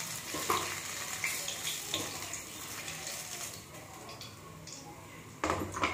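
Hot oil sizzling in a steel kadai as fried paneer cubes are lifted out with a metal spatula, with light clinks of the spatula against the pan and plate. The sizzle dies down as the last pieces come out, and a sharper knock follows near the end.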